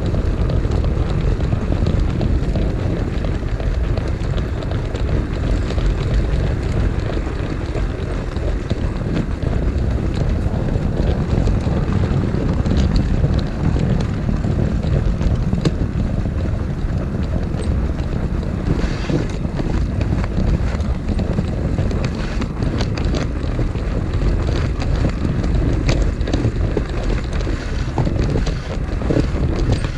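O gauge model train rolling along its track, heard from a camera riding on it: a steady low rumble, with scattered light clicks in the second half.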